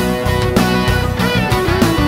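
Rock music with guitar and a steady beat.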